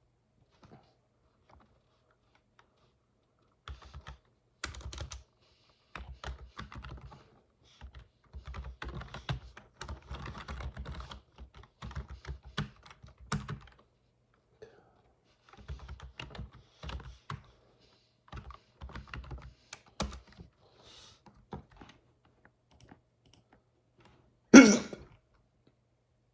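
Typing on a computer keyboard in irregular bursts of clicking keystrokes with pauses between them. Near the end comes one short, loud hiccup.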